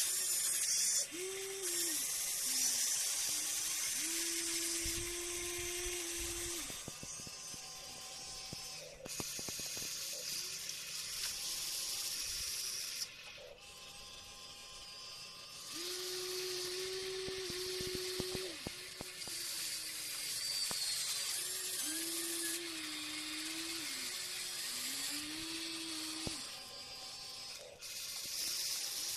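Electric motors and gearboxes of a Huina RC excavator whining as the boom, arm and bucket move, the whine starting and stopping and stepping up and down in pitch with each movement, with a high hiss switching on and off alongside.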